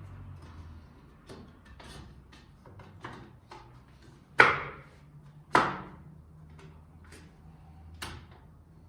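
Sharp knocks of wood being struck or set down on the workbench, irregular, with two much louder knocks about four and a half and five and a half seconds in.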